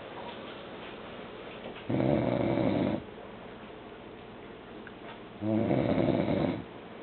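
A man snoring: two loud snores, each about a second long, one about two seconds in and the next about three and a half seconds later, with quiet breathing between.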